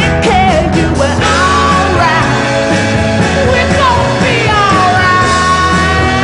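Background rock music with a singer's voice over a steady bass line; the voice slides down onto a long held note in the last couple of seconds.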